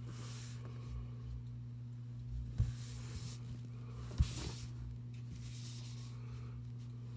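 Paintbrush stroking and dabbing thick paint on paper in soft swishes, with two light knocks about two and a half and four seconds in. A steady low hum runs underneath.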